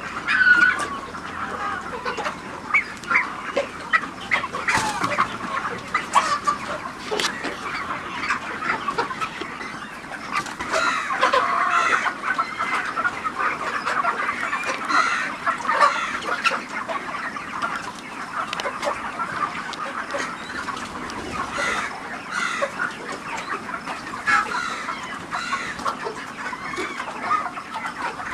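A flock of broiler chickens clucking and peeping continuously, many short calls overlapping.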